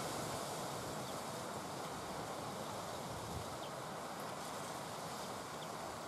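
Steady outdoor background hiss, like light wind, with a few faint, short high chirps from small birds in the second half and a soft low thud about three and a half seconds in.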